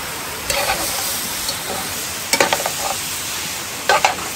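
Pieces of boucané (smoked pork belly) sizzling steadily as they fry in their own fat and a little olive oil in a metal pot. A metal spoon stirs them and scrapes or knocks against the pot about three times.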